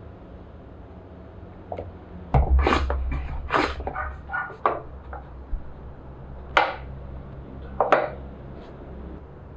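Pine wood and hand tools being handled on a workbench: a cluster of wooden knocks and scrapes with a low thud about two and a half seconds in, then two sharp knocks a little over a second apart near the end.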